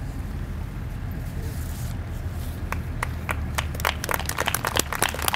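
Audience applause starting: a few scattered hand claps about halfway through that quickly build into denser clapping, over a steady low rumble.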